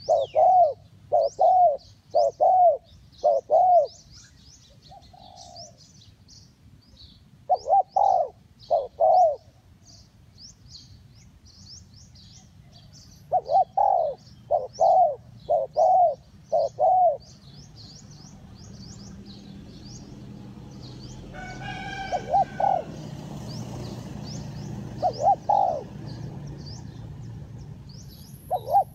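Spotted doves cooing: several phrases of short, arching coos, the longest of about five notes, with pauses of a few seconds between them, over steady high chirping of small birds. A low rushing noise swells through the second half.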